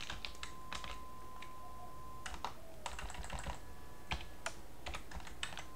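Typing on a computer keyboard: irregular keystroke clicks in quick, uneven runs.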